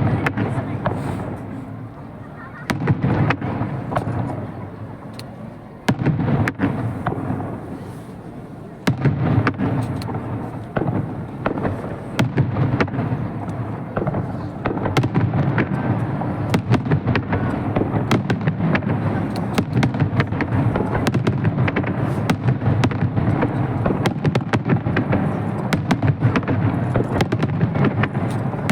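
Fireworks bursting: separate loud booms every few seconds at first, each with a rumbling tail, then from about halfway a dense run of rapid bangs and crackling.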